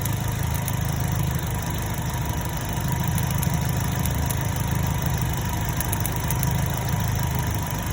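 2010 Chevrolet Cobalt's 2.2-litre four-cylinder engine idling steadily, running with the mass airflow sensor's missing ground jumpered.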